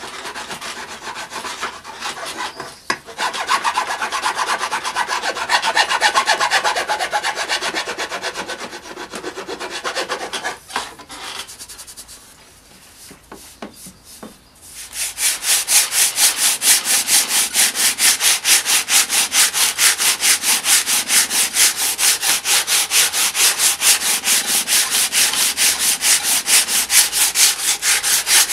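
Wood rasp scraping the bark off a rattan cane in quick back-and-forth strokes, rounding the stave. Partway through it stops briefly with a few knocks, then goes on in a fast, very even run of strokes.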